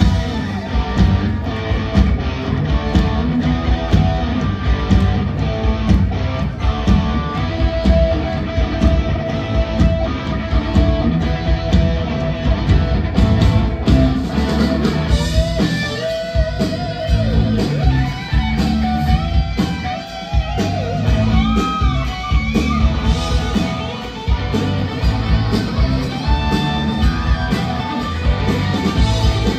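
Live rock band playing at full volume: electric guitars over bass and a drum kit, with a guitar line of bent, wavering notes from about halfway through.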